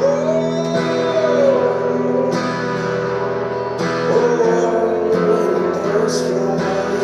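Acoustic guitar strumming chords, with a man singing into the microphone over it.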